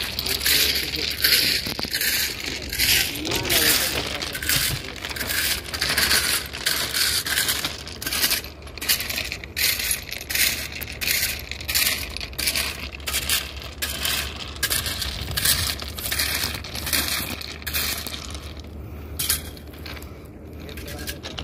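Footsteps crunching on railway track ballast stones, about two steps a second, with the stones clinking underfoot.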